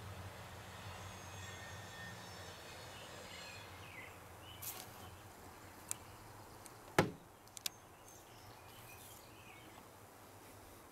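Faint outdoor background noise with a low hum during the first few seconds, a few short sharp clicks, and one louder knock about seven seconds in.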